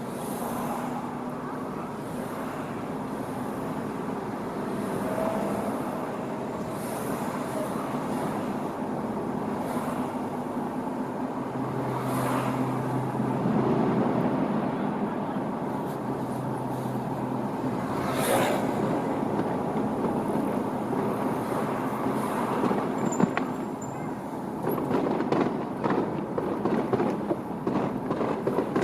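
Steady road or rail traffic noise with vehicles passing. From about three-quarters of the way in, a run of sharp, uneven pops and bangs from a fireworks display begins.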